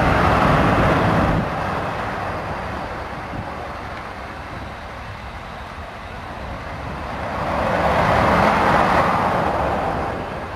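Jet engine noise from a Blackburn Buccaneer's Rolls-Royce Spey turbofans: a rushing sound that swells twice, loudest right at the start and again about eight seconds in.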